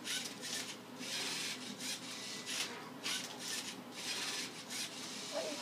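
Lego Mindstorms NXT MindCuber robot's motors and plastic gears running in a quick series of short, gritty whirring bursts.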